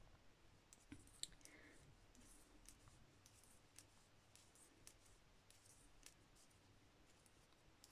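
Near silence with faint, irregular clicks of metal knitting needles tapping together as stitches are worked, one a little sharper about a second in.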